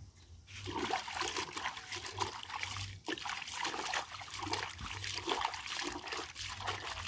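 Water sloshing and splashing inside a tall wooden mortar as a hand scrubs its inside, with irregular swishing strokes starting about half a second in.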